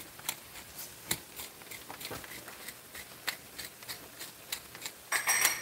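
Wooden hand pepper mill grinding black pepper: a quick run of small dry clicks and crackles as the mill is twisted. Near the end comes a short, louder clatter with a faint metallic ring.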